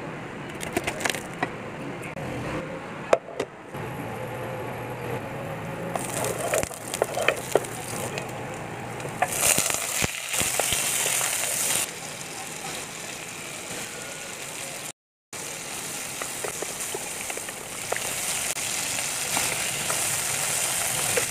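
A few sharp knocks of a cleaver on a wooden chopping board, then chicken pieces sizzling as they fry in a hot pot and are stirred with a wooden spatula.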